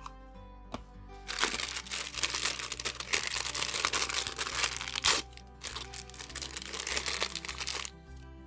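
Packaging crinkling and rustling as a mini fashion ball is unwrapped by hand, in one long run from about a second in until near the end, with a sharp snap about five seconds in.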